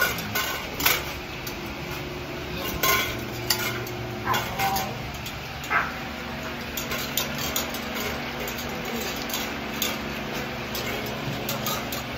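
Scattered metallic clinks, knocks and rattles from stainless-steel wire kennel cages and metal feeding bowls.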